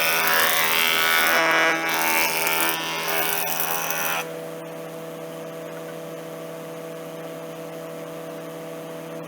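Surface planer cutting a timber piece for about four seconds, then running on with no load as a steady hum once the cut ends.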